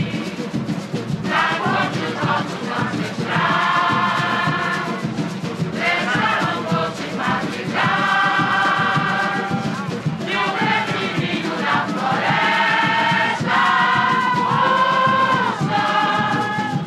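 Samba-enredo from a live recording, sung by a chorus of voices in long held phrases over a dense, steady samba percussion beat.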